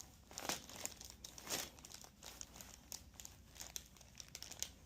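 Soft, intermittent crinkling rustles from hands and body moving on a chiropractic table, a handful of short ones, the loudest about half a second and a second and a half in.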